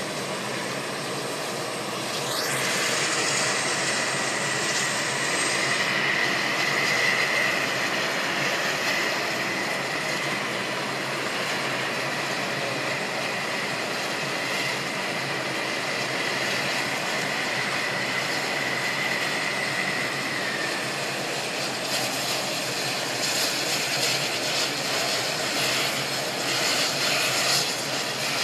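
Sikorsky UH-60 Black Hawk helicopter running on the ground with its rotor turning: a steady rush of rotor and turbine noise with a high turbine whine over it. A brief rising whistle comes about two seconds in, and the whine fades out about twenty seconds in.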